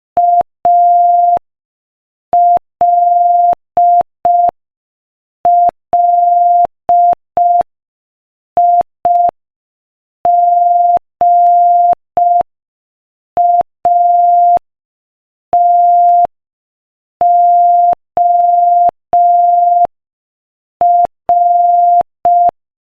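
Morse code sent at 5 words per minute as a single steady beep of about 700 Hz, keyed on and off in short dits and longer dahs grouped into letters with pauses between them. Each tone starts and stops with a slight click.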